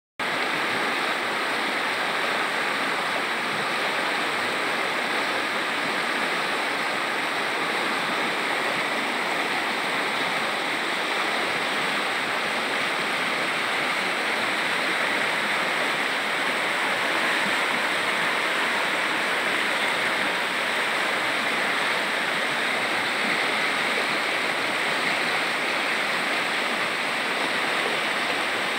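Shallow, clear river running fast over stones and pebbles, a steady rushing and splashing of water around the rocks. The river is running swift after continuous rain.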